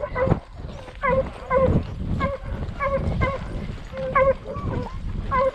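Dogs yelping repeatedly in short, high calls about twice a second while giving chase, over the thudding hoofbeats of a horse being ridden.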